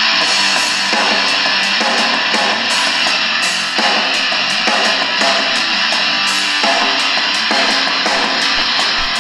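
Guitar-led rock music playing through the small speaker of a Realistic DX-380 portable radio, received on FM 92.9 from a low-power FM transmitter fed by an MP3 player.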